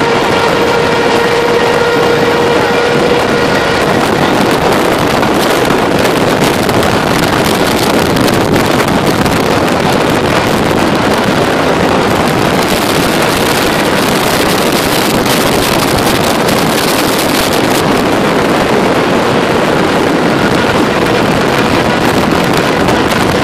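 Loud, steady rush of wind and road noise from a semi truck's cab at highway speed, blowing across the microphone held at the open window. A faint steady hum shows over the first few seconds.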